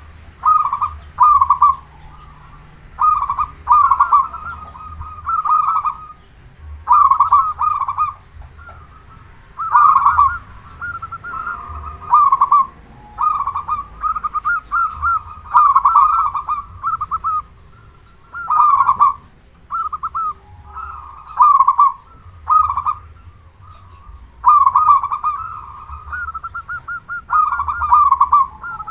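Local zebra dove (perkutut) cooing over and over: repeated phrases of quick, clustered notes, each about a second long, following one another every second or two without a break.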